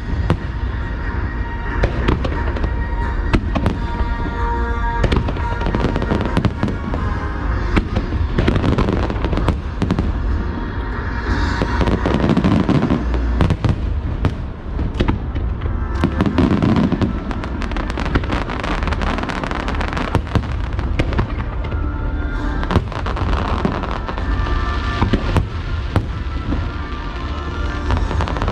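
Fireworks bursting in quick, continuous volleys with crackling, over music playing for the show.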